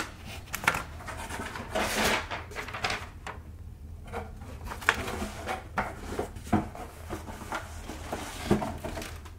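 Cardboard shipping box being opened and handled: an irregular string of scrapes, knocks and crinkly rustles as the flaps are pulled back and hands reach into the packing.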